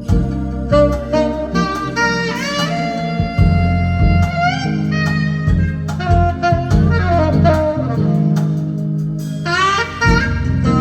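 Jazz music: a horn plays a solo line with rising bends and slides over a steady bass line.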